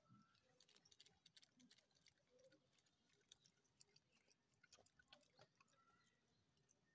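Faint, irregular clicking and chewing of a dog eating from a plastic bag.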